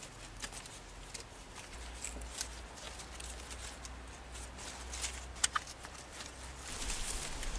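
Cattail leaves rustling and crackling as they are woven over and under by hand, with scattered light clicks and one sharper click about five and a half seconds in.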